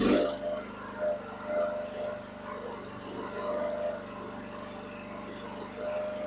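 Huayee mini excavator's engine running steadily, with a brief loud noise right at the start.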